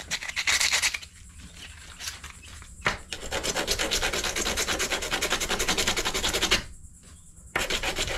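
Rust being scrubbed off a galvanized trailer hitch pin by hand: a fast, even run of scratchy back-and-forth strokes. It stops briefly near the end, then starts again.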